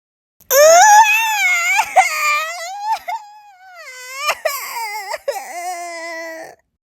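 Young child crying loudly in long, high-pitched cries that rise and fall, with a few sharp catches in between. It starts abruptly about half a second in and cuts off suddenly near the end.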